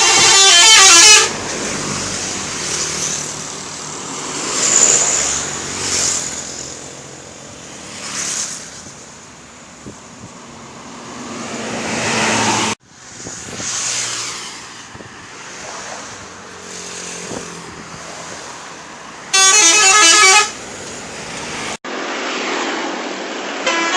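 Indonesian bus 'telolet' multi-tone horns playing a quick alternating-note tune, once about the first second and again briefly near the end. Between the two, traffic and road noise with passing vehicles.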